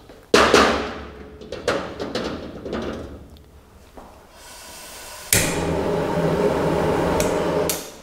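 A wok knocking against the grate of a commercial gas wok burner as it is tossed: one sharp metal clank, then several lighter knocks. About four seconds in the burner is lit: a click and a growing hiss of gas, then it catches with a sudden whoosh into a loud, steady rush of flame that stops shortly before the end.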